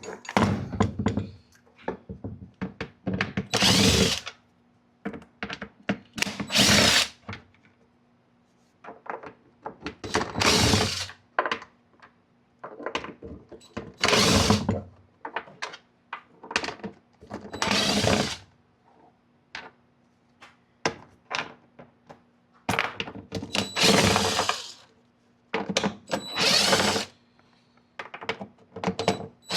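Cordless impact gun running in short bursts of about a second, backing out the screws of a plastic speaker pod, about eight times, with small clicks and knocks of handling between bursts.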